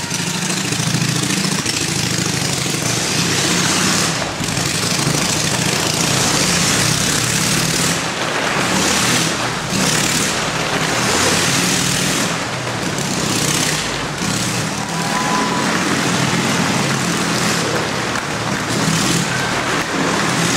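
Motorcycle engine running hard as it circles a Wall of Death's vertical wooden wall. Its sound swells and fades about once a second as the bike sweeps past on each lap.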